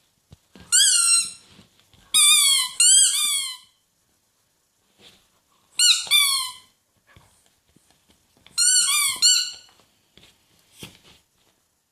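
A squeaky toy being chewed by a dog, squeaking five times with short squeaks, two of them back to back. Each squeak bends up and then down in pitch, with faint chewing clicks in between.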